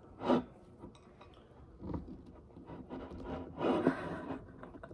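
Fork and knife scraping and sawing through a slice of ice cream cake on a plate, in irregular strokes with light clicks of metal against the plate, the busiest stretch a little under four seconds in.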